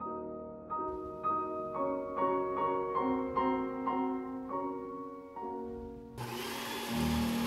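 Piano music with evenly paced single notes. About six seconds in, a blender motor starts suddenly with a loud, steady whir under the music.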